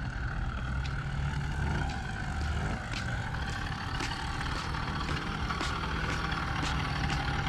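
Chinese 80cc two-stroke motorized-bicycle engine running steadily on its first run, with a low chugging that sounds like a tractor.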